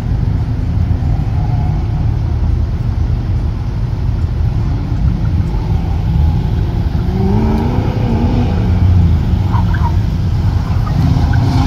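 Ford Mustang's engine running hard through an autocross cone course, with a steady low rumble. About seven seconds in, its pitch rises and falls as it accelerates and lifts.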